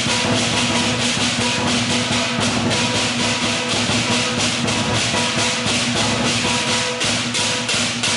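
Lion dance percussion band playing: a large drum with clashing cymbals and a gong, the cymbals struck in a fast, steady beat of about four clashes a second over a held ringing tone.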